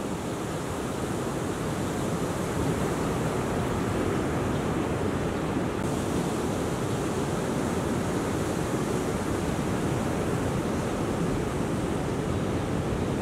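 Ocean waves breaking and whitewater washing in: a steady rush of surf, a little louder from about two seconds in.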